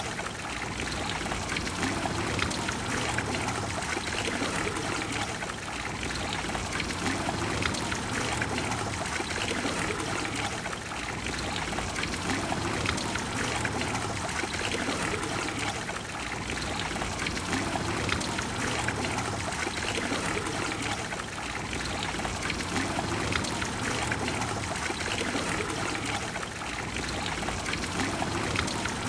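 Water of the Trevi Fountain falling and splashing into its basin: a steady, even rush of running water.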